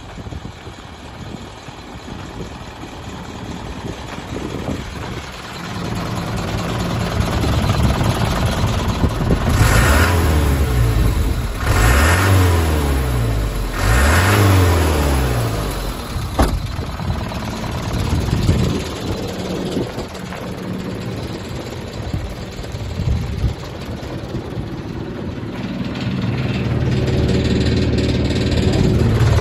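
Mitsubishi Canter dump truck's 4D33 four-cylinder diesel engine running: idling, then revved up and let back down three times in quick succession about ten to fifteen seconds in, with a single sharp click just after. Near the end it settles into a steadier, louder run.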